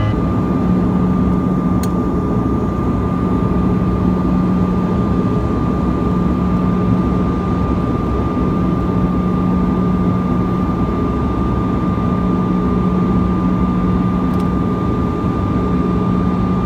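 Passenger airliner cabin noise in flight: a steady rush of engine and airflow noise, with a constant low hum and a thin high tone.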